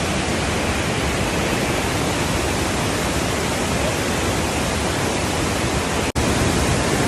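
Nauyaca Waterfall's falling water: a steady, loud, even rush of noise. It breaks off for an instant about six seconds in and carries on slightly louder.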